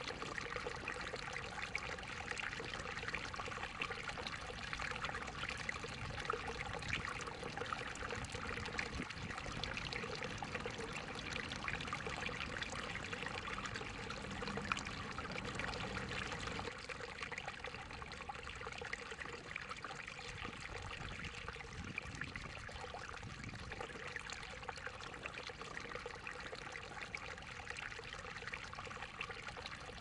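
Shallow water trickling and babbling steadily in a small stream or channel, dipping slightly in level a little past halfway.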